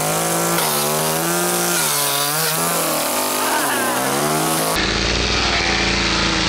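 Petrol chainsaw running, its pitch rising and falling as the throttle is worked. About five seconds in the sound turns steadier and rougher as the chain cuts through a wooden skateboard deck.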